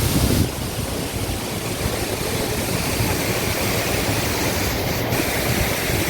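Chitrakote Falls on the Indravati River: the steady rush of the falling water, an even, dense noise that dips slightly in level about half a second in.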